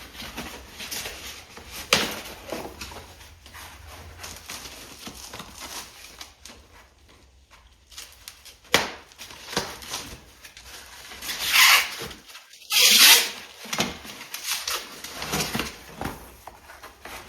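Packaging being handled and searched through: scattered clicks and knocks with rustling, and two louder bursts of rustling about eleven and thirteen seconds in.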